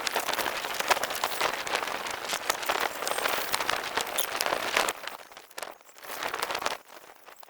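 Sheet of plastic shrink wrap being handled, a dense crinkling and rustling full of small sharp crackles, which dies down about five seconds in to quieter intermittent rustling.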